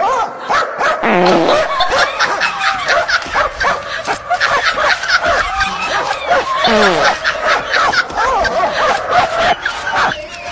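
People laughing and giggling continuously.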